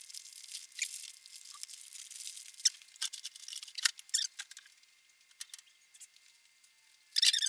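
Paper wrapping crinkling and rustling in quick crackles as hands handle and tear at it. It thins out and stops about halfway through, and a louder burst of crinkling starts near the end.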